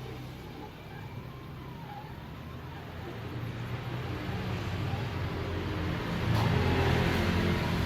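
A thin whine that rises and falls in pitch about every second or two, over a low mechanical hum that grows louder near the end.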